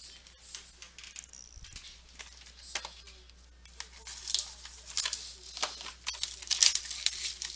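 Plastic wrapping on a trading-card box crinkling and tearing, loud and crackly from about four seconds in, after a few seconds of light handling clicks.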